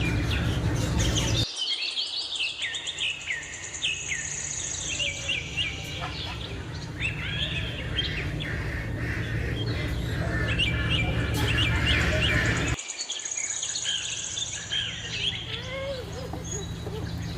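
A dense chorus of many small caged birds chirping, twittering and trilling over a low steady background hum. The hum and the general level drop abruptly twice, about a second and a half in and near the end.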